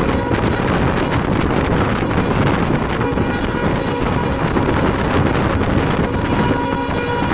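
Express train running at high speed: a rapid, continuous clatter of wheels over the rails with rushing wind. Near the end the WDP4 diesel locomotive's horn starts to sound.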